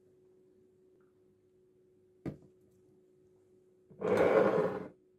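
A sealed glass jar is turned upside down and set down on a table with a single sharp knock about two seconds in. Near the end comes a loud burst of noise about a second long, over a faint steady hum.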